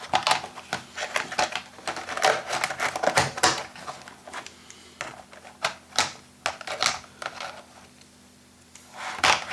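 Small tools and the plastic case of a Kaisi 2408 precision screwdriver set being handled: a dense run of clicks and rattles for the first few seconds, then scattered clicks, and another cluster near the end.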